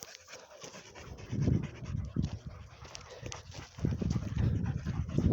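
Dog panting in short, heavy breaths, strongest in the last second or so.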